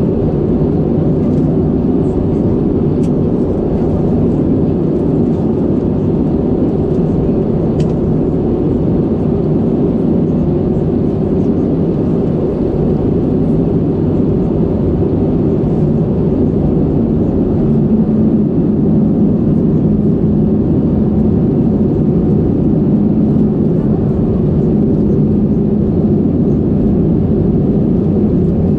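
Steady low roar inside the cabin of an Airbus A320 in descent, engine and airflow noise heard at a window seat over the wing. It grows slightly louder about two-thirds of the way through.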